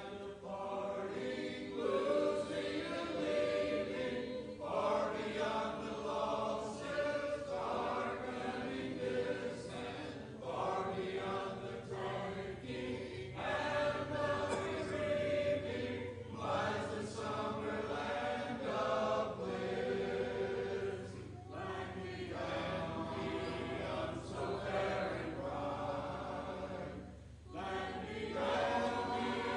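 Congregation of mixed men's and women's voices singing a hymn a cappella in four-part harmony, in phrases with brief breaks between lines.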